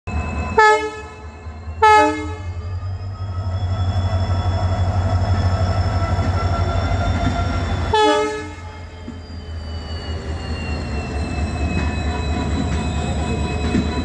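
WDP-4D diesel-electric locomotive sounding two short horn blasts about half a second and two seconds in, then a third short blast about eight seconds in, over the steady low hum of its EMD 16-710 two-stroke engine as it passes. A thin high whine slowly falls in pitch as the coaches roll by.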